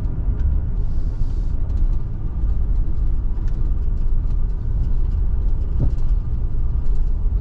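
Car moving slowly, heard from inside the cabin: a steady low engine and tyre rumble with scattered light ticks over it.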